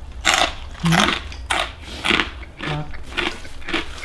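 A person chewing crunchy food close to the microphone, with a crunch about every half second and a couple of brief low hums in between.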